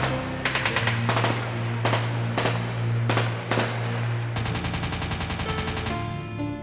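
Bursts of machine-gun fire, several in quick succession, over a low sustained music drone.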